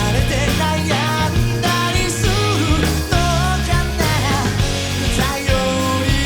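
Live rock band playing an instrumental passage of the song: a lead line of bending, wavering notes over steady bass and drums.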